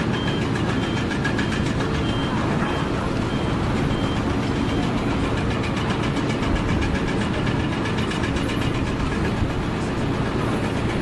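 Heavy machinery running steadily with a fast regular ticking, and a short high beep repeating about twice a second that stops about halfway through.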